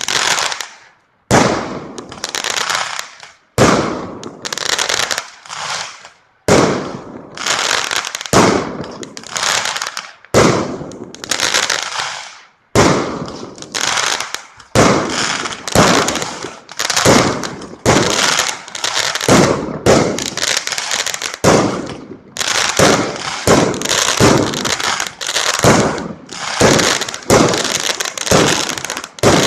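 Aerial fireworks going off one after another, about one a second: each sharp bang is followed by crackling that fades away, with a few short pauses in the first dozen seconds.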